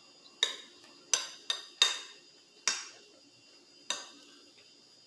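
Metal spoon clinking against a plate while scooping food: six sharp clinks, each with a short ring.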